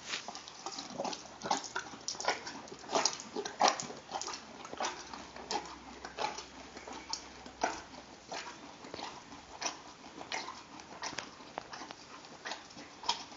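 Horse chewing an orange: irregular juicy crunching, a few bites a second.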